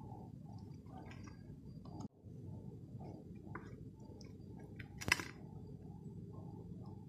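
Soft squishing of food being mashed and mixed by hand with boiled egg in a steel plate, over a steady low rumble, with one sharp click about five seconds in.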